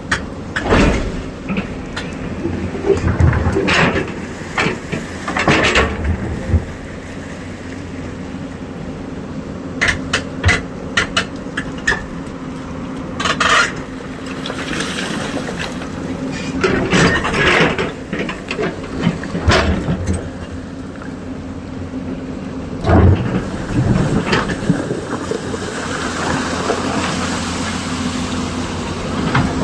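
Excavator's diesel engine running steadily, with repeated metallic clanks and knocks from the machine working, some in quick clusters and a loud one about three-quarters of the way through.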